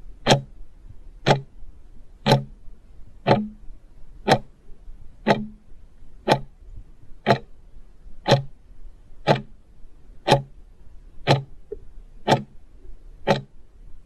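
Clock ticking sound effect counting down, one sharp tick each second, about fourteen in all.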